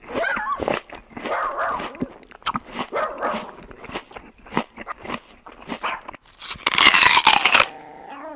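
Dog whining and barking over a run of sharp chewing clicks, with one loud, drawn-out bark with a falling pitch about six and a half seconds in.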